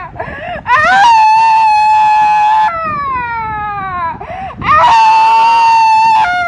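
A woman screaming and wailing in long high cries: two held cries of about two seconds each at a steady pitch, each sliding downward as it breaks off, with lower falling wails between them.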